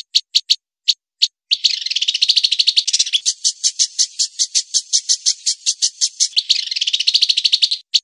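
Songbird call from a masteran (bird-tutoring) recording: a fast string of sharp, high, evenly repeated notes. It begins with spaced notes, runs into a dense rapid trill about a second and a half in, settles into a steady chatter of about six notes a second, and breaks into another dense trill near the end.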